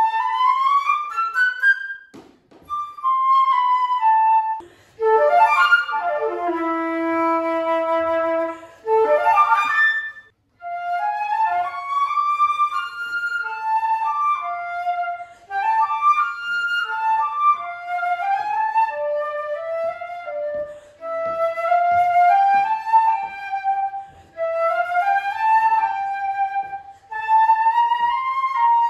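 Solo concert flute playing a classical passage in phrases broken by short pauses for breath. A few seconds in, a falling run settles on a long held low note before the melody picks up again.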